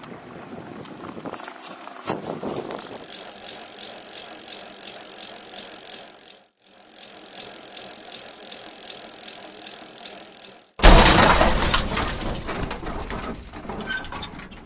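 Mountain bike riding along a muddy forest track: tyre and drivetrain noise with a steady high whir. About eleven seconds in a sudden loud rush of noise breaks in and fades over the next few seconds.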